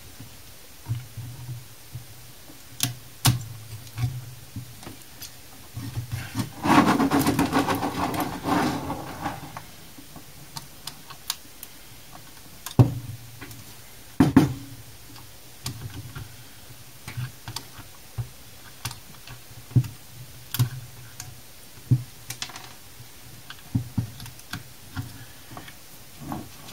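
Hand tool picking and scraping hardened, darkened tan glue off the circuit board of a Bestec computer power supply: scattered clicks and short scratches, with one longer grating scrape about seven to nine seconds in.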